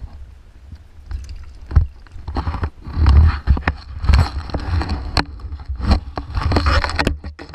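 Heavy vinyl fish bag on a jet ski rustling and crinkling as it is closed over a kingfish, with a few sharp knocks, over a steady low rumble.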